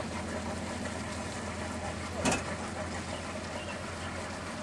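A steady low engine hum under a constant noisy wash, with one short bump about two seconds in.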